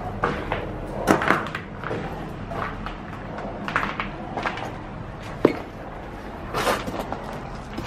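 Irregular knocks and clicks, scattered through the stretch, with the sharpest about a second in and about five and a half seconds in.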